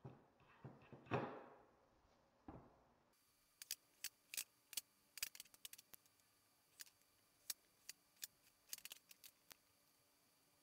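Near silence, with faint sharp clicks scattered irregularly through most of the stretch.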